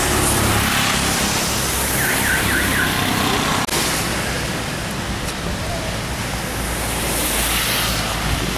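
Steady hiss and low hum of street background noise, with a few quick faint chirps about two seconds in and a single sharp click a little later.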